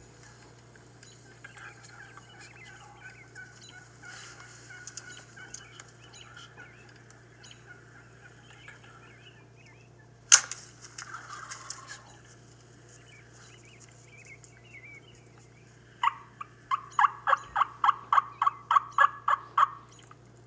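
Wild turkeys: a tom gobbles once, loudly, about ten seconds in, and near the end comes a rapid run of about fifteen turkey yelps, roughly four a second. Heard as played back through a laptop's speakers, over a steady low hum.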